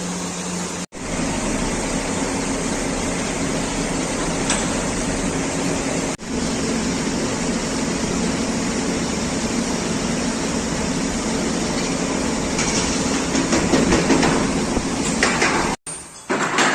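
Brass melting furnace running with a steady mechanical hum and rushing noise, growing rougher and louder toward the end. It drops out briefly about a second in, around six seconds in, and near the end.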